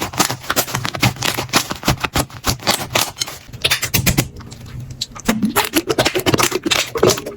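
Slime being squeezed and pressed by hand, with rapid irregular crackling clicks and pops, and wetter squelching sounds joining from about five seconds in.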